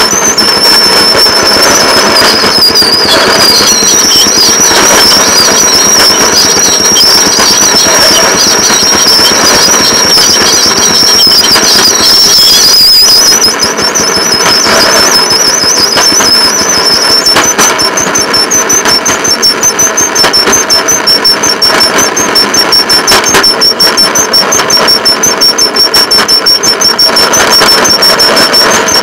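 Rail patrol motor car running along the track: its engine and steel wheels on the rails make a loud, continuous mechanical noise. A high, wavering squeal rides on top for the first dozen seconds, and the sound then settles into a steady, rapid rhythmic pulsing.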